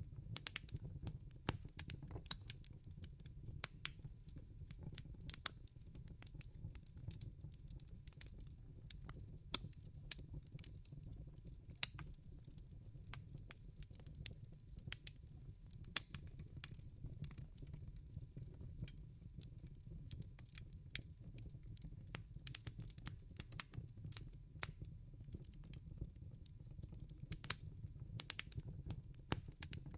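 Wood fire in a fireplace crackling: irregular sharp pops and snaps, several a second and of varying strength, over a low steady rumble.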